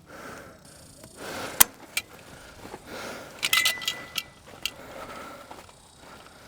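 Airsoft guns firing: a handful of sharp, irregular shots, with a quick cluster of several about halfway through, over the rustle and rattle of gear on the move.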